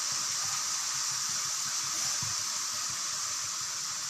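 Stir-fried vegetables sizzling steadily in hot oil in the pan as sauce goes in.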